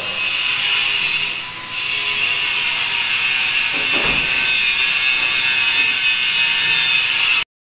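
A power tool runs steadily with a high-pitched whirring hiss during kitchen cabinet carpentry, dipping briefly about a second and a half in and cutting off suddenly near the end.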